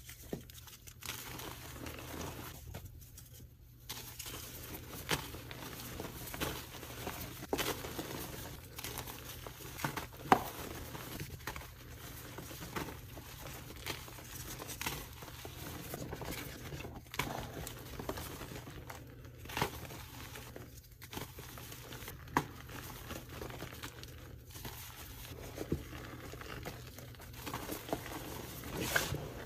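Soft, powdery gym chalk blocks crushed and crumbled by hand: irregular soft crunching and crumbling with sharper cracks now and then, the loudest about ten seconds in.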